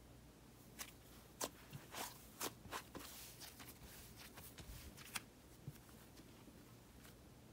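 Thick, fluffy cloud slime being stretched, folded and squeezed by hand. Its air-filled texture gives off faint, scattered crackles and soft tearing pops, several in the first five seconds and fewer near the end.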